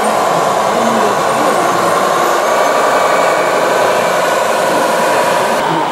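Radio-controlled model Bell articulated dump truck running under load, a steady mechanical drone with no pauses, changing slightly near the end.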